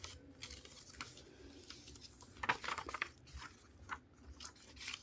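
Faint paper rustling and crinkling as a folded paper flashcard is handled, with a short flurry of rustles and clicks about two and a half seconds in.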